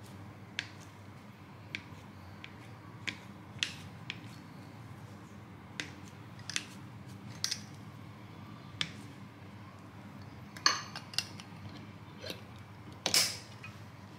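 Scattered light clicks and taps of a spatula against a glass jar, then a louder clack near the end as the jar's glass lid is shut on its wire clasp.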